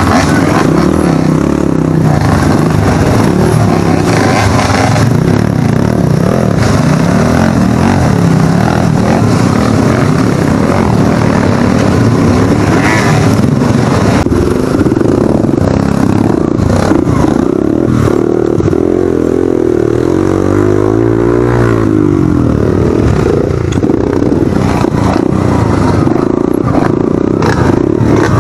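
Enduro dirt bike engines revving up and down as the bikes pick their way over rocks and up a steep dirt trail. There is a run of quick rises and falls in engine pitch about two-thirds of the way in.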